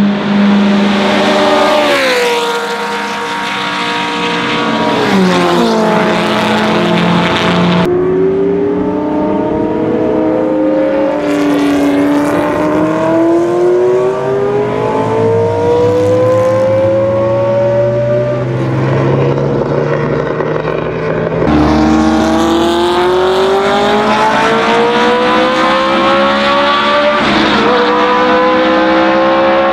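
High-revving 1.5-litre Coventry Climax V8 of a 1964 Brabham BT11, among other historic Grand Prix cars racing past. The engine pitch drops about two seconds in and again near six seconds, then climbs in long rises as the cars accelerate through the gears, with a short dip at a gear change near the end.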